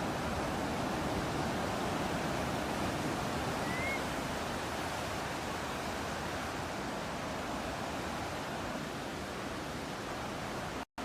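Steady ocean surf and breeze, an even rushing wash, with a single short rising bird chirp about four seconds in. The sound cuts out for a split second near the end, the seam of the loop.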